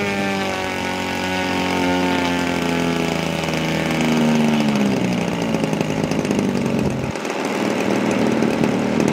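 DLE 40 cc two-cylinder boxer gasoline engine of a large RC aerobatic plane, its barrel mufflers fitted with add-on silencers, running on the ground with the propeller turning. The pitch sags and rises with small throttle changes, then about seven seconds in the engine is opened up to high revs and gets louder.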